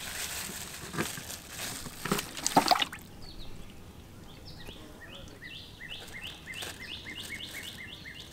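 Crinkling and rustling of a plastic bag as hands work in it, with a few sharper crackles, for about the first three seconds. Then a bird calls in a quick, even series of short high chirps, about three a second.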